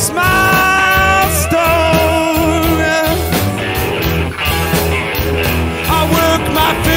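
Blues band playing from a cassette recording: long held notes that waver with vibrato over steady bass and drums.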